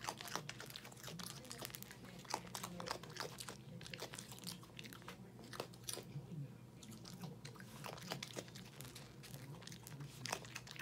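A raccoon chewing dry Cheerios, an irregular run of sharp, crisp crunches.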